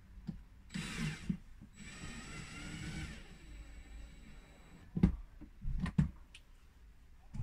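A short rustle, then a cordless screwdriver whirring for about a second and a half as it drives a fridge fixing screw, followed by two sharp knocks about a second apart, the first the loudest.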